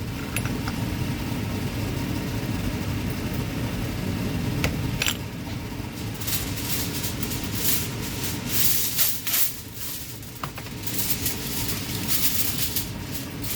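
Kitchen fan running with a steady low rumble. Bursts of hissing rustle come in the middle and near the end, with a couple of sharp clicks.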